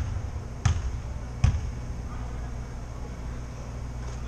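A basketball bounced on a hardwood gym floor three times in the first second and a half, then a steady low background hum.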